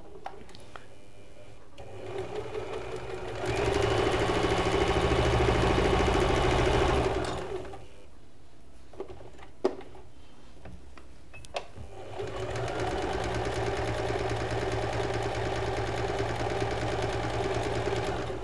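Usha Janome Fashion Maker electric sewing machine, worked by its foot pedal, sewing a simple straight stitch in two runs. It picks up speed about two seconds in and runs until about eight seconds in, a few clicks follow in the pause, then it runs again, a little quieter, from about twelve seconds in.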